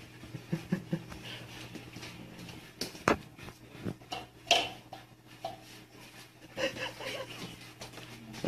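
Cats scuffling by food bowls on a wooden floor: scattered knocks and thumps, the loudest about three and four and a half seconds in.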